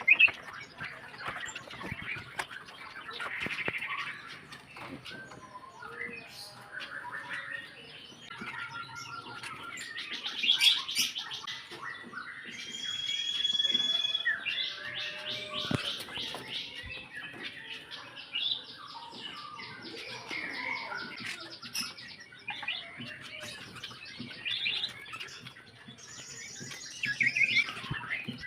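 Small aviary birds chirping and calling, with some rapid high trills and scattered rustles and clicks.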